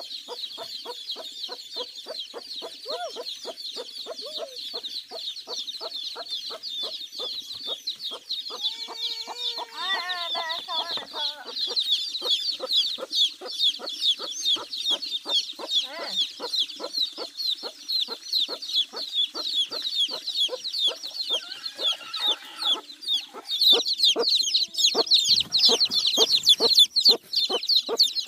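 A brood of chicks peeping constantly, high and rapid, over steady rhythmic clucking at about two to three a second. The peeping grows louder near the end.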